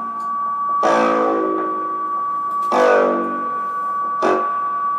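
Live improvised instrumental music: chords struck about every one to two seconds and left to ring out, over a steady high held tone.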